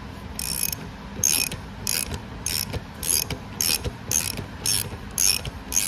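Half-inch ratchet clicking in short repeated strokes, about two a second, as it turns the nut of an injector sleeve puller to draw the injector cup out of a Caterpillar C15 cylinder head.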